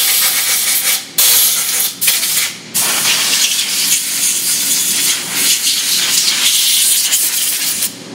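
Compressed-air blow gun blasting chips and coolant off a milling machine's vise: a loud, steady hiss, cut by three short breaks in the first three seconds, then held until it stops near the end.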